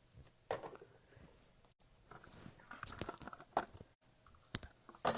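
Crinkling and small clicks of paper and a roll of glue dots being handled at a craft table, with one sharp tap about four and a half seconds in.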